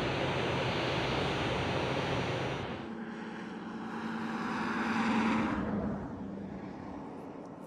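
Steady outdoor rumble with a low mechanical hum. Then a different engine sound with a steady low note swells to a peak about five seconds in and fades away, like an engine passing by.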